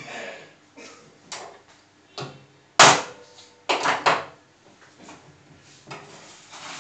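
A stainless-steel Top Sealer TS-200 manual container sealer and hand tools being handled on a wooden table: a string of irregular knocks and clatters, the sharpest about three seconds in, followed by a quick cluster of knocks about a second later.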